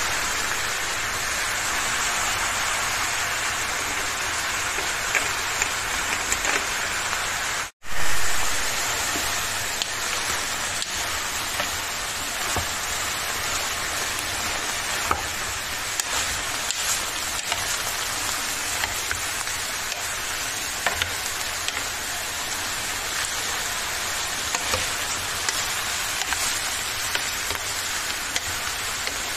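Diced eggplant frying in oil in a pan: a steady sizzle with scattered light clicks as a wooden spoon stirs it. The sound cuts out for an instant about eight seconds in.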